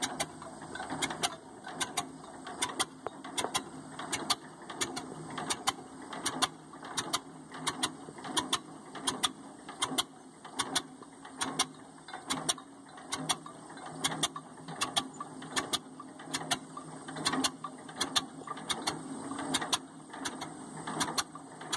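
1947 John Deere H's two-cylinder engine at low idle, popping slowly and unevenly at about two sharp exhaust pops a second, pulling the tractor along in second gear.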